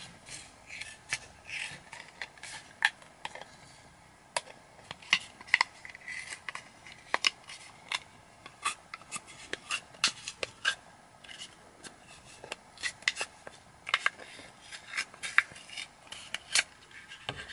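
Scissors cutting a short length of black hose open lengthwise: a string of irregular crisp snips, with the blades scraping along the tube between them.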